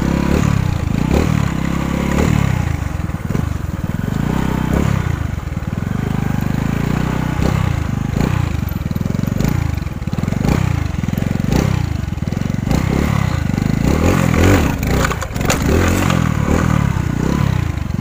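Small stunt motorcycle's engine running as it is ridden, its pitch rising and falling with the throttle, under heavy wind rush on the rider's camera microphone.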